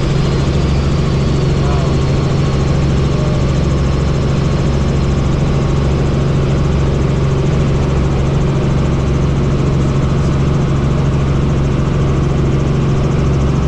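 Helicopter in flight: a steady, loud drone of engine and rotors that does not change.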